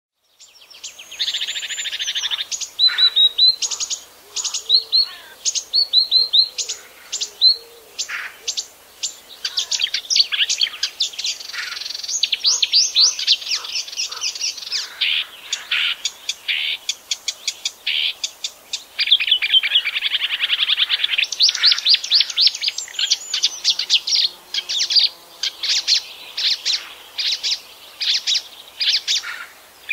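Marsh warbler singing its long, continuous, varied song. Quick notes and fast rattling trills run on without a break, with buzzy stretches near the start and again about two-thirds of the way through.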